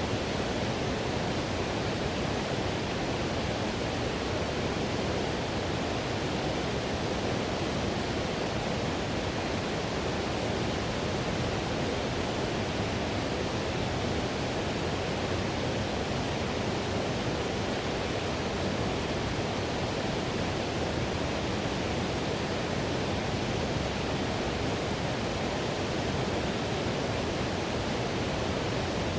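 Whitewater river rushing over rapids: a steady, unbroken wash of fast-moving water.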